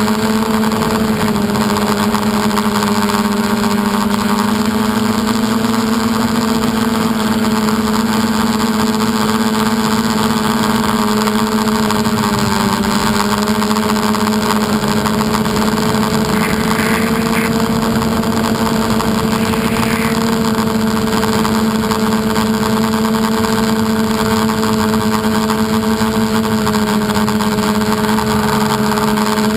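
Motor and propeller of an FPV RC aircraft running steadily, picked up by the GoPro on board: a steady hum whose pitch drifts slightly as the throttle changes, over a constant hiss.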